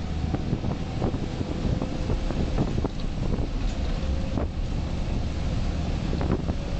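Scania 124 truck's 12-litre six-cylinder diesel heard from inside the cab while driving, a steady low drone with frequent short knocks and rattles from the cab and tyres on the snowy road.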